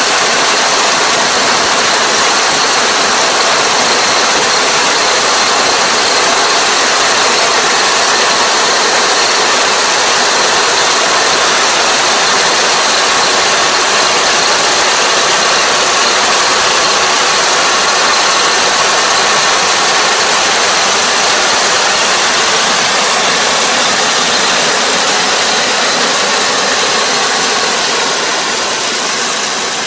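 Combine harvester running steadily at close range, a loud constant mechanical din from its engine and machinery, easing off slightly near the end.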